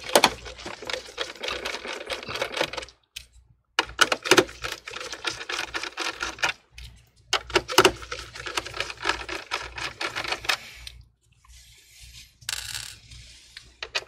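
Phillips screwdriver backing screws out of a computer's metal-and-plastic frame: three runs of rapid clicking, each about three seconds long, then fainter handling sounds near the end.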